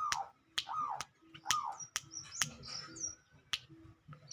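Caged wild-caught songbird calling: sharp clicks mixed with short arching calls, repeated roughly once or twice a second, with a couple of high falling chirps.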